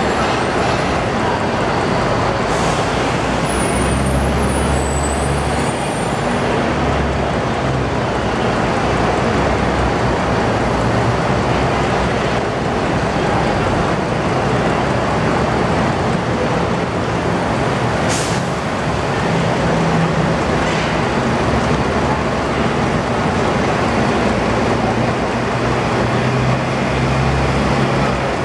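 Steady din of diesel bus engines running in a bus interchange, with low engine hum throughout. A brief hiss comes about eighteen seconds in.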